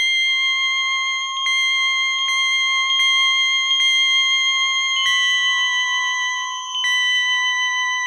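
Slow synthesizer music: pure electronic tones held as long sustained chords, shifting to new notes about five seconds in and again near seven seconds, with faint clicks between them.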